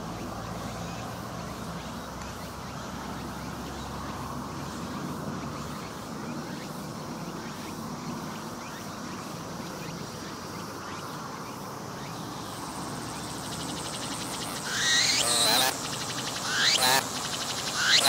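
A cicada calling close by in short loud bursts, three of them in the last few seconds, each sweeping in pitch. Before them there is only a faint steady outdoor background.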